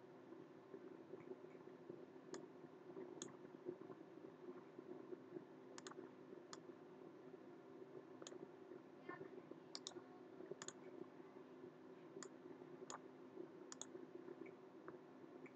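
Faint computer mouse clicks, about a dozen at irregular spacing, over a low steady hum.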